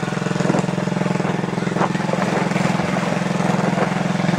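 A small engine running steadily at a constant speed.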